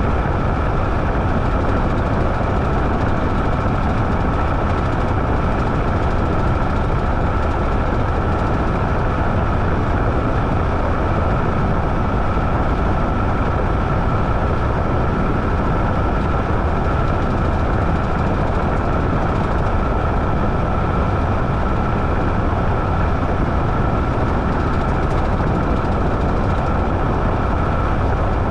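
Washing machine running with a steady mechanical hum and rumble, a constant high whine held over it.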